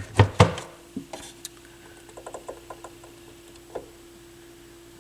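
Push buttons on a Dual CS 530 turntable being pressed: two sharp clicks, then a run of lighter clicks, with a faint steady hum underneath. The buttons do nothing when pressed, which the owner suspects is because something has broken off them.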